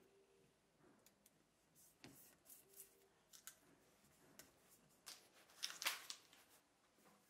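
Faint, scattered rustles, crackles and light taps of hands working a clear plastic protective sheet onto a cricket bat's face and handling the bat. The loudest cluster of crackles comes about six seconds in.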